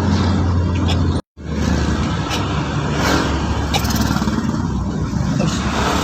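Ambulance on the move: steady engine hum and road noise, breaking off completely for a moment just over a second in.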